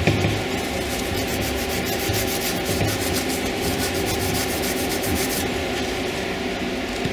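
Scotch-Brite abrasive pad scrubbed back and forth with light pressure over the oiled gasket surface of an aluminum cylinder head, in quick rasping strokes, scuffing off the last traces of old head-gasket residue.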